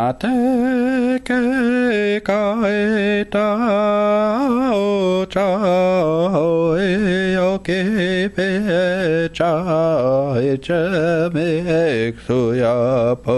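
A man's voice chanting solo in long held notes, the pitch wavering and gliding, with short breaks for breath every second or two.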